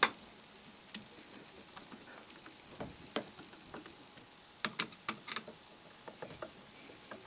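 Screwdriver turning wood screws into particle-board vise jaw faces: faint scattered clicks and scrapes, with a short run of sharper clicks about five seconds in.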